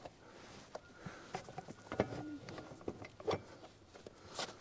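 Scattered metal clicks and knocks of a PTO driveline yoke being worked against a tractor's PTO stub shaft, as the splines are lined up by hand and will not go on; the sharpest knock comes about two seconds in.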